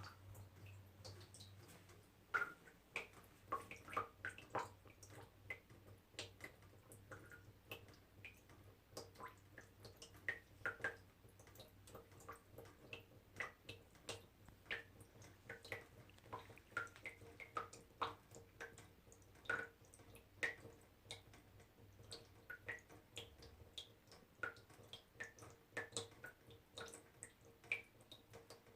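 Small water droplets dripping: irregular plinking drops, a few per second, each with a short pitched ring.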